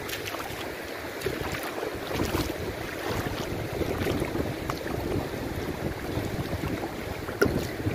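Lake water sloshing and splashing around legs wading through it, with wind rumbling on the microphone and a few small splashes and clicks. One sharper hit stands out near the end.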